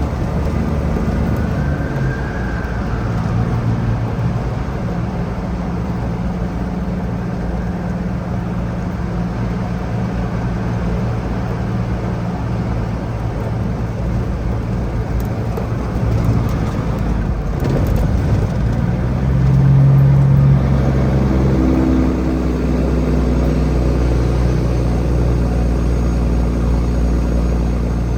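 Heavy diesel engine running steadily, its note shifting in pitch and rising louder for a moment about twenty seconds in.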